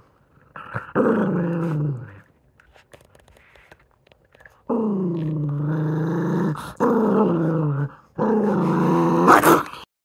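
Toy poodle growling over a chew: four long, low growls with rising and falling pitch, each lasting one to two seconds. The last growl swells into its harshest, loudest point near the end.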